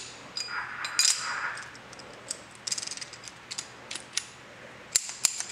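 Metal clicks and light rattling of a chisel bit being seated in an Ajax pneumatic rescue air hammer and its spring-loaded retaining gate snapped into place. The clicks are scattered, with a quick cluster about halfway through and a few sharper clicks near the end.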